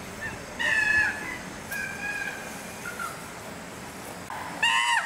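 Chimpanzees calling: a string of short, high-pitched calls, loudest about half a second in and again near the end, where a call rises and falls in pitch.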